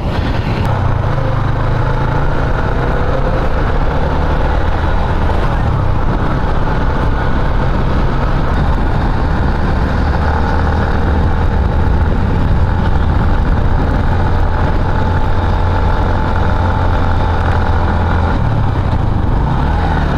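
Motorcycle engine running while riding, with its pitch shifting near the start and again near the end as the revs change, over steady rushing noise.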